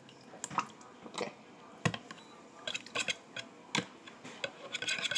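Light clicks and small knocks of a ceramic bowl and a fork being handled on a stone countertop, scattered through, with a quicker run of clicks near the end.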